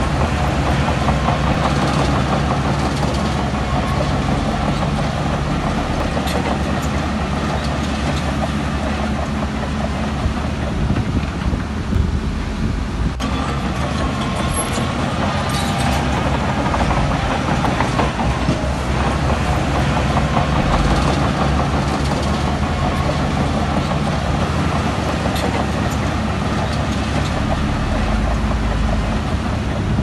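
Bulldozer's diesel engine running steadily under load, with scattered metallic clanks and knocks.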